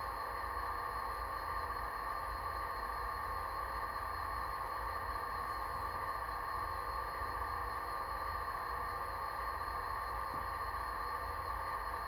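Simulated diesel engine sound of a model Amtrak F40PH locomotive standing still, played by its Tsunami 2 sound decoder through the model's small speaker: an even, unchanging drone with a low rumble.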